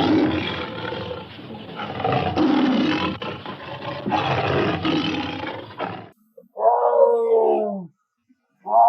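Tiger roaring: about six seconds of rough, rasping roars that swell three or four times, then after a short gap a single clearer roar that falls in pitch, with another just beginning at the end.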